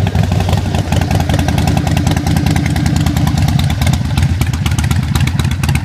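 Harley-Davidson Sportster 1200's V-twin idling steadily through a stage 1 setup: Vance & Hines Short Shots exhaust, Screamin' Eagle air filter and Fuel Pak remap. It is a deep, even Harley rumble.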